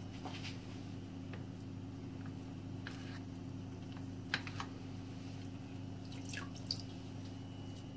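Faint small splashes and drips of water as a metal ice cream scoop and then a wet hand dip into a plastic bowl of water, with a few light clicks of the scoop, over a steady low hum.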